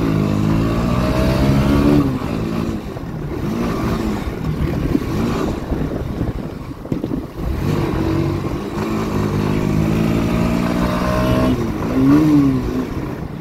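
Motorcycle engine accelerating through the gears. Its pitch climbs, falls back at each shift and climbs again, with a quick rise and fall of the revs near the end.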